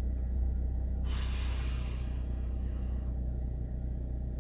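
Steady low rumble of a car on the move, heard inside the cabin, with a hiss lasting about two seconds starting a second in.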